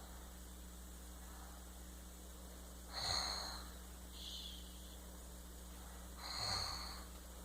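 Snoring while falling asleep: two noisy snoring breaths about three seconds apart, each with a thin high whistle, and a softer whistling breath between them.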